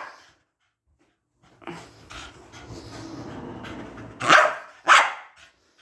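A pet dog panting, then two loud barks about half a second apart near the end.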